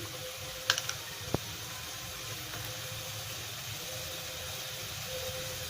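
Egg pepper masala sizzling steadily in the pan, with a few sharp clicks a little under a second in and one more shortly after.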